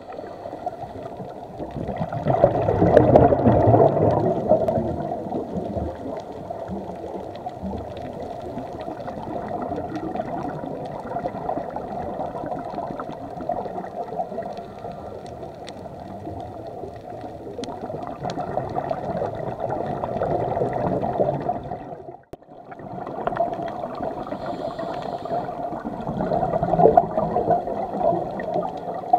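Underwater sound of a scuba diver breathing through a regulator: the hiss and gurgle of exhaled bubbles rushes up in surges every several seconds over a steady watery wash. There is a brief gap about three-quarters of the way through.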